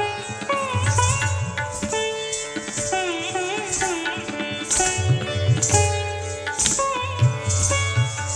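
Hindustani classical music for Kathak: tabla playing under a melody of sliding, wavering notes, with repeated bursts of high jingling.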